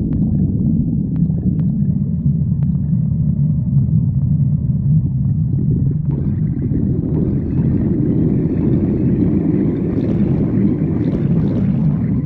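Hungry stomach growling: a continuous low rumble that gets brighter and fuller about halfway through.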